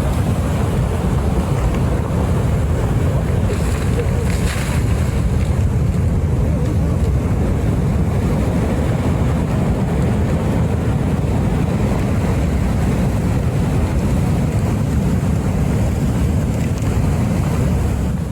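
Heavy wind buffeting the microphone over rough seas, a steady low rumble with the rush of surf beneath it.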